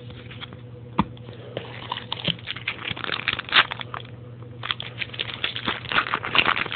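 Trading cards being handled and flipped through by hand: quick rustling and flicking, thicker in the second half, with one sharp click about a second in.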